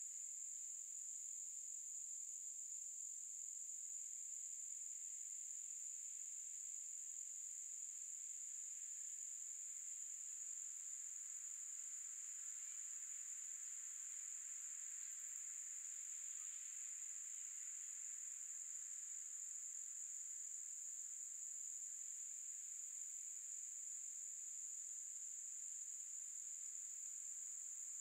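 Steady, high-pitched chorus of insects in summer woodland, one even unbroken shrill note.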